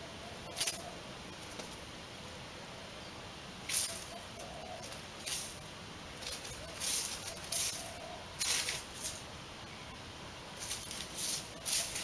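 A rabbit digging with its front paws in sandy soil: short, hissy bursts of scraping and flung sand come in irregular bouts, with a quicker run of them near the end.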